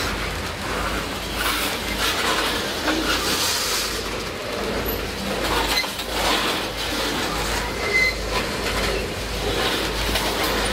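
Freight train tank cars rolling past close by: a steady rumble of steel wheels on rail with irregular clanks and rattles, and a brief high squeak about eight seconds in.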